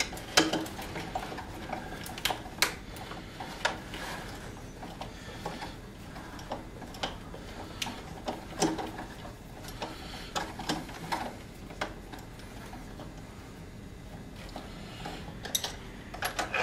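Irregular clicks and light metallic clinks of a door deadbolt and its hardware being handled and pulled from the packaging, busiest in the first few seconds and again near the end.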